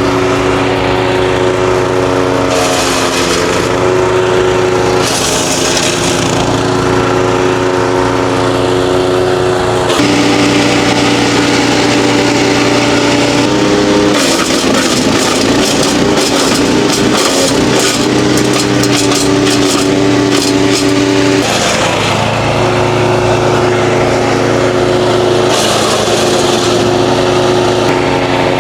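Wood chipper's engine running steadily, its pitch shifting several times as pruned mango branches are fed in. Through the middle its steady note breaks up into rough, rattling noise for several seconds while the load is heaviest, with short bursts of hissing spray from the chipped wood.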